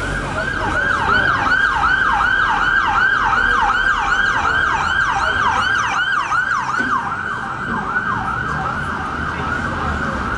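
Emergency vehicle siren in a fast yelp, its pitch sweeping up and down about three to four times a second, over traffic noise. It grows fainter in the last few seconds.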